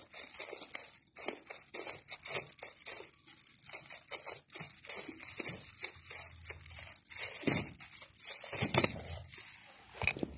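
Thin disposable plastic glove crinkling and rustling as it is pulled onto a hand and flexed, a fast, irregular crackle.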